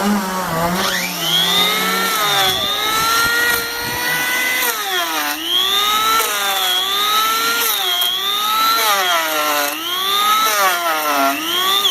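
Makita electric curved-base power planer spinning up about a second in, then cutting across a log to take off limb bumps: its high whine sags in pitch each time the blades bite into the wood and recovers between passes. It winds down near the end.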